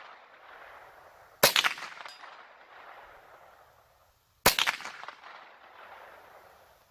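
Two .22 LR rifle shots from a Ruger 10/22, about three seconds apart, each followed by a long trailing echo.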